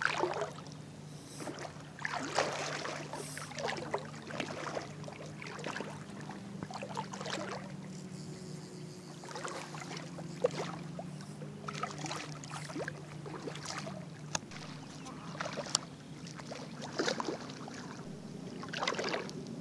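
Low steady drone of a boat engine, its pitch drifting slightly, fading out about twelve seconds in. Scattered splashes of water from a hooked redfish being played on a fly rod in the shallows.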